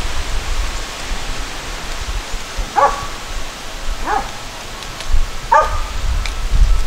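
A dog barking three times, about one bark every second and a half, over a steady hiss and low rumble.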